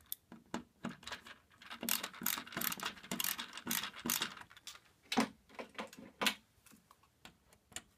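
Screwdriver turning terminal screws in a plastic solar-panel junction box: a run of small, irregular clicks and scrapes, with a couple of sharper taps about five and six seconds in.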